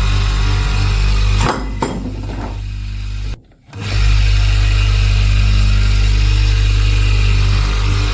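Electric power tool running: a steady motor hum under an abrasive hiss. The sound thins about a second and a half in, cuts out briefly near the middle, then comes back at full strength.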